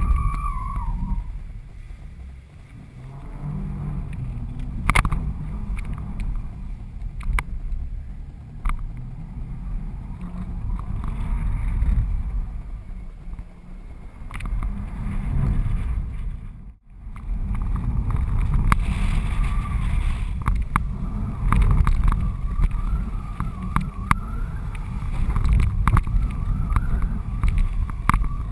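Wind buffeting the microphone of a GoPro HD camera in its housing, strapped to the strut of a flying kitesurfing kite. It makes a steady low rumbling rush with scattered sharp clicks and a faint wavering whistle, and it cuts out briefly a little past the middle.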